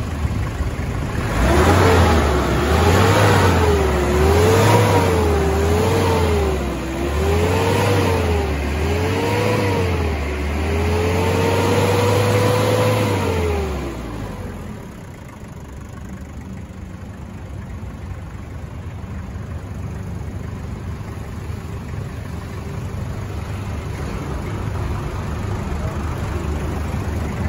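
Mazda Bongo's R2 2.2-litre four-cylinder diesel engine revved up and down about five times in quick succession, then held up for a few seconds. About fourteen seconds in it drops back and runs steadily at a lower, quieter level.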